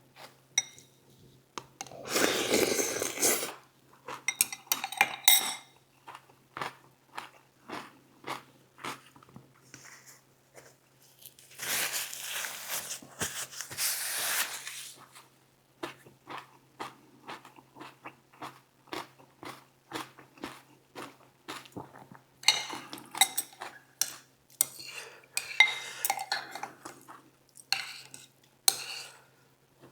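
Close-miked eating sounds: a utensil clicks and scrapes repeatedly against the dish, with chewing in between. There are two longer noisy stretches of a couple of seconds each, early and mid-way.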